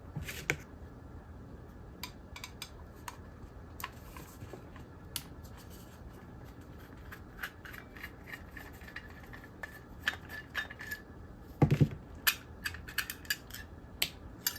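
Scattered light clicks, ticks and scrapes of small steel and plastic switchbox parts being worked loose by hand, with a louder knock about twelve seconds in.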